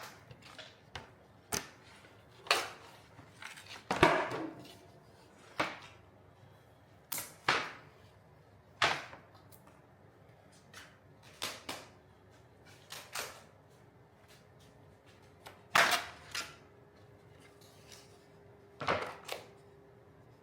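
Sharp cracks and knocks as a cast wood-and-epoxy box is worked free of its mold, about twenty of them, unevenly spaced and some in quick pairs.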